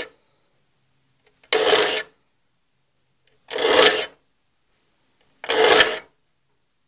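Saw sharpening file rasping across the teeth of a crosscut hand saw: three even strokes about two seconds apart, each about half a second long, as the teeth are filed sharp one after another.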